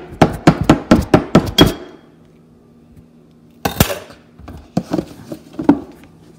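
A quick run of about nine sharp taps in under two seconds, then a pause, a single louder clack and a few lighter knocks: a cardboard box and scissors being handled against a hard tiled countertop.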